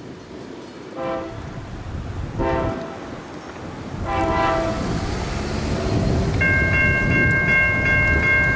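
Nathan K5LA air horn on an NJ Transit GP40PH-2B diesel locomotive sounding three blasts, each longer than the last, over a low rumble that grows louder as the train approaches. About six seconds in, a bell starts ringing rapidly and steadily.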